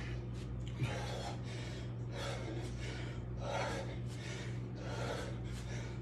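A man breathing hard through heavy exertion, a run of forceful rhythmic exhalations as he swings a 53 lb kettlebell, with a short knock about a second in. A steady low hum sits underneath.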